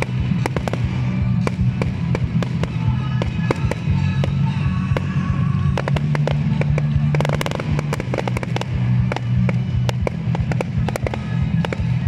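A fireworks display: a rapid series of firework bangs and crackles, with a denser burst about seven seconds in. Music plays steadily underneath.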